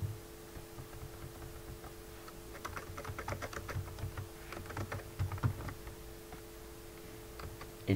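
Typing on a computer keyboard: a quick run of key clicks as a command is deleted and retyped, densest about three seconds in, over a faint steady hum.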